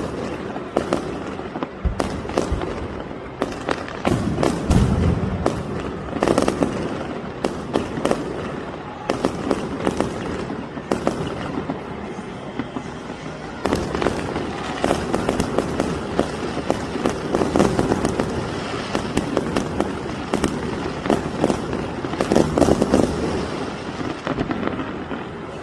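Fireworks display: dense crackling bangs of aerial shells going off one after another, mixed with low booms, the deepest about five seconds in.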